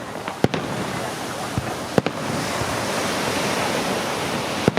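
Fireworks display: three sharp shell bursts, about half a second in, at about two seconds and near the end, over a dense hissing wash of firework noise that grows fuller and brighter from about two seconds on.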